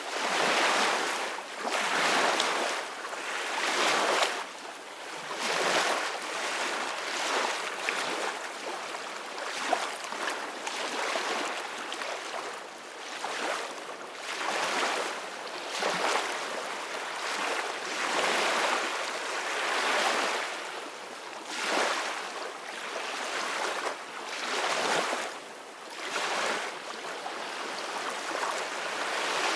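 Ocean waves washing on a shore: a steady surf hiss that swells and falls back every couple of seconds.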